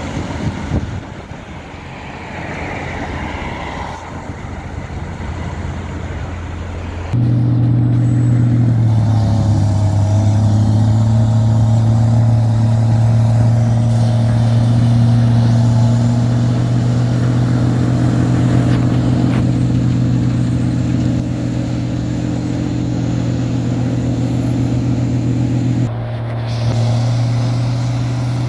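Heavy diesel snow-removal machinery running: lower, rougher engine and traffic noise at first. About seven seconds in, it steps up suddenly to a loud, steady low drone of a loader-mounted snow blower throwing snow into a dump truck, with a brief dip near the end.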